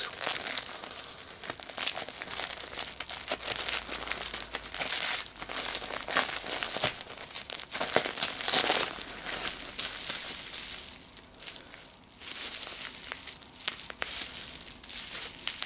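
Gift wrapping paper crinkling and tearing as a present is unwrapped by hand, a continuous rustle of fine crackles with a brief lull about twelve seconds in.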